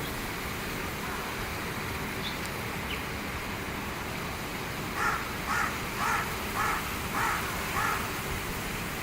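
Wild birds calling: two faint short high notes, then from about five seconds in a run of six harsh calls about half a second apart.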